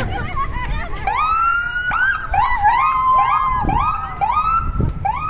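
Fire engine's electronic siren in a fast yelp, repeated quick rising whoops about two a second, starting about a second in.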